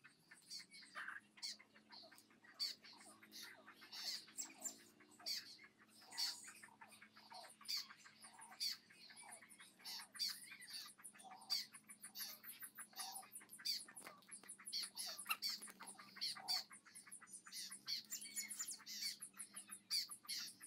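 Birds chirping and squawking: a busy, unbroken run of short, high calls, several a second.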